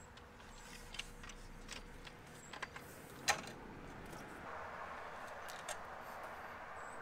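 Faint scattered clicks and light knocks of an awning's support poles being handled and set as a truck-mounted awning is propped open, the sharpest knock about three seconds in. A soft steady rush comes up about halfway through.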